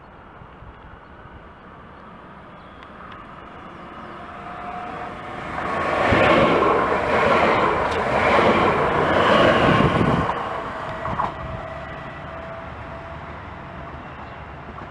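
A DB Talent 2 (class 442) electric multiple unit passing close by: the rush of the train swells from about four seconds in, stays loud for several seconds, then fades, with a steady whine above the wheel noise.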